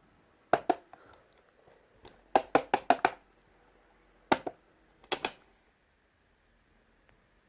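An Astrosound cassette player being handled, giving sharp mechanical clicks and knocks in small groups. There is a pair about half a second in, a quick run of about five around two and a half seconds in, then a single one and a last pair.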